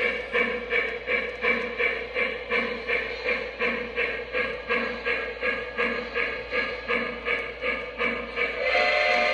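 Lionel Shay steam locomotive's electronic sound system chuffing evenly at about three chuffs a second as the toy train runs. Near the end the chuffing gives way to a steadier, louder sound with held tones.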